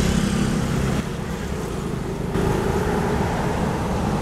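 Road traffic noise: a steady low rumble of passing vehicles that dips about a second in and picks up again a little past two seconds.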